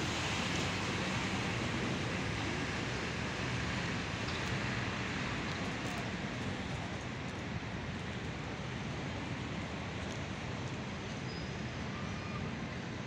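Steady traffic hum of a busy bus station, with buses and road traffic running, easing off slightly in level.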